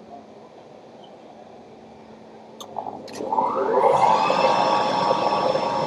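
Vacuum suction of a robot arm's suction gripper switching on about three seconds in: a whine that rises in pitch, then settles into a steady loud whine with rushing air. Two short clicks come just before it starts.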